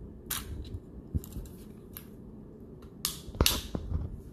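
Plastic toy spinning-top launcher being worked by hand: a series of short clicks and scrapes, the loudest a little past three seconds in.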